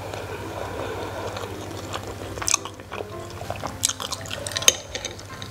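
Light background music with close-miked chewing and a few sharp clicks in the second half, the loudest about two-thirds through.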